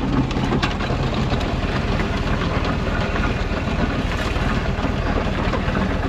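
Massey Ferguson 711 potato harvester working behind a Massey Ferguson 35 tractor: a steady clatter of its chains and webs over the low hum of the tractor engine, as it lifts sticky clay and potatoes.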